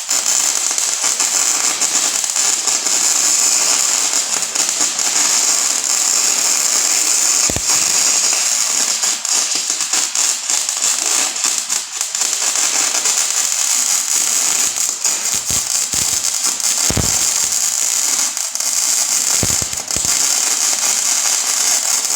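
Snap-On FM140A MIG welder's arc burning steadily, a continuous hissing crackle with sharp spatter pops. The arc dips briefly a few times, about twelve and twenty seconds in.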